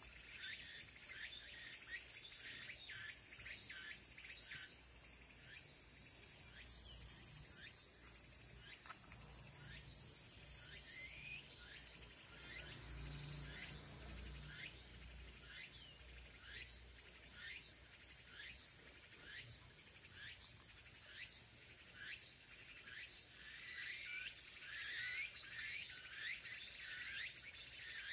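Outdoor insect chorus of crickets trilling steadily and high-pitched, with short falling chirps repeating about once a second in the second half.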